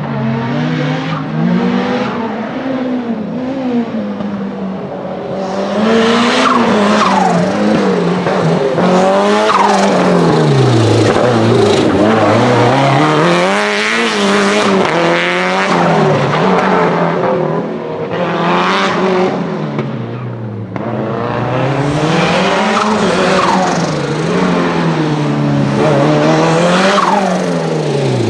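Lancia Delta HF Integrale Evo 2's turbocharged four-cylinder engine, tuned to 500 hp, revving up and falling back again and again as it is driven hard through a slalom, with tyre noise under hard cornering.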